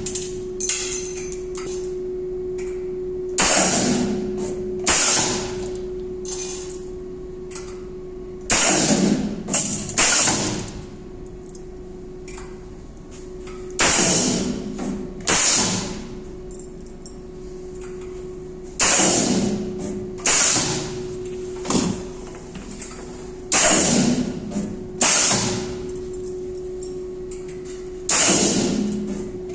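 Steel ball spot welding machine cycling: pairs of sharp mechanical clunks about a second and a half apart, repeating about every five seconds over a steady machine hum.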